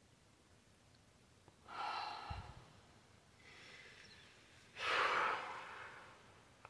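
A woman crying quietly without words: three shaky breaths and sniffs, the loudest a heavy breath about five seconds in.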